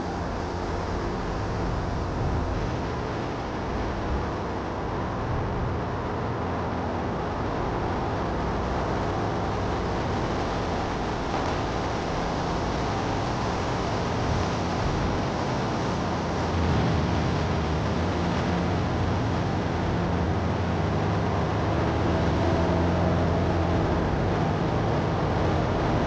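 Steady low rumble and hiss of outdoor background noise, a little louder in the second half.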